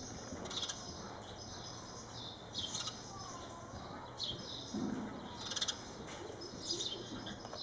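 Horse cantering on soft indoor arena footing, its hoofbeats muffled and low, with short high chirps every second or two above them.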